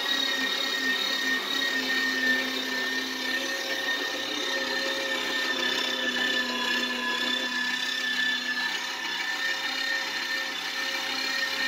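Electric meat grinder running steadily with a constant motor whine as meat is pushed down its feed tube and minced.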